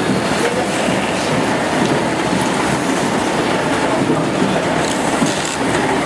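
Rotary die cutting machine with chain feeder running steadily as it processes corrugated board sheets: a loud, continuous mechanical clatter.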